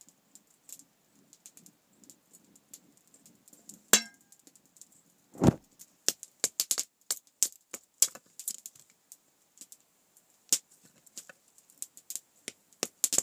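Small kindling fire of split wood and shavings crackling, with irregular sharp pops that come thick and fast from about halfway through. A sharp click about four seconds in and a dull thump just after it stand out as the loudest sounds.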